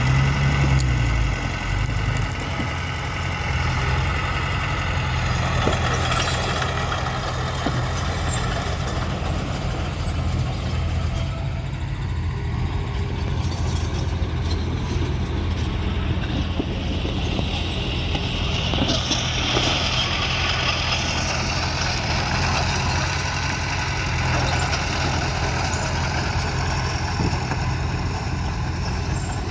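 Heavy diesel construction machinery, dump truck and bulldozer engines, running steadily with a continuous low rumble. A higher-pitched mechanical whine rises for a couple of seconds past the middle.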